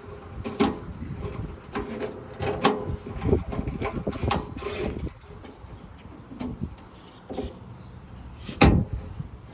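Irregular metallic clicks, clunks and rattles of tailgate lock and latch parts being handled and fitted by hand, with one louder knock near the end.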